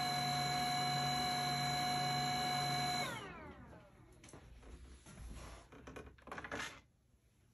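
HumminGuru ultrasonic record cleaner's drying fan whining steadily, then winding down with a falling pitch about three seconds in as the drying cycle ends. After that come soft clunks and rubbing as the vinyl record is handled in the machine's slot.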